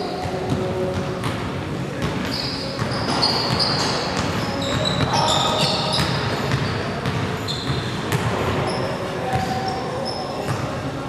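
Pickup basketball in a large gym: a basketball dribbling on the hardwood floor, sneakers squeaking in short high chirps, and players calling out now and then.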